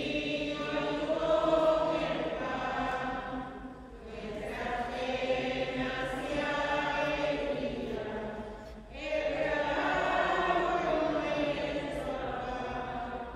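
Voices singing a slow hymn in long held phrases, with short breaks for breath about 4 and 9 seconds in.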